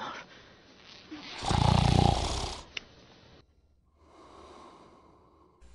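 A man snoring: one loud, rasping snore lasting about a second, about a second and a half in, then a fainter, longer breath.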